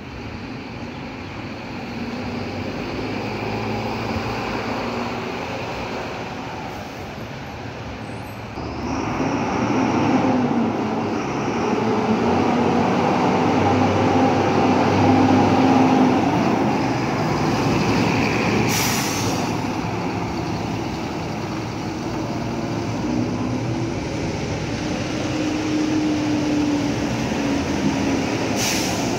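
City bus diesel engines running as buses drive past and pull away, swelling louder about a third of the way in. A short sharp hiss, like an air brake releasing, cuts in about two-thirds through and again near the end.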